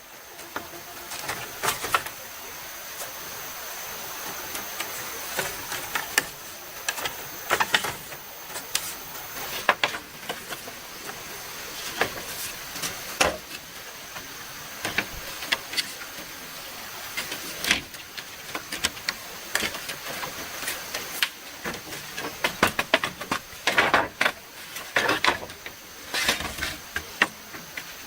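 Irregular sharp clicks and knocks of handwork, coming thicker a little past the middle, over the steady hiss of a running stream.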